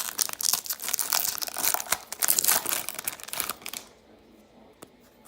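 A trading-card pack's wrapper being torn open and crinkled, a dense crackling that stops about four seconds in.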